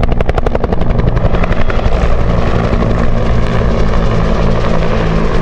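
A pair of Bell UH-1H Huey helicopters flying past, their two-bladed main rotors beating about ten times a second. The beat fades about two seconds in, leaving a steady drone of turbine and rotors.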